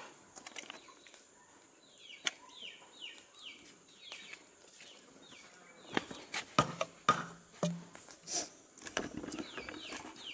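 Chickens calling nearby: a quick run of short, high, falling peeps, several a second, which stops around the middle and comes back near the end. Sharp clicks and knocks from fish and bamboo being handled over a steel bowl come in the middle.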